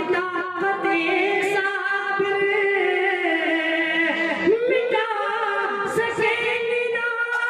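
A man singing a sad Urdu ghazal in tarannum into a microphone. He holds long notes and ornaments them with wavering, gliding turns of pitch.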